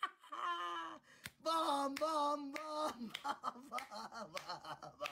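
A man laughing hard, first in drawn-out, wavering whoops and then in short, quick bursts.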